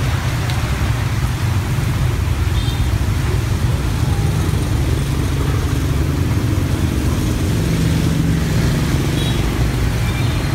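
Steady road traffic noise from motorbikes and cars, a constant low rumble, under the hiss of heavy rain.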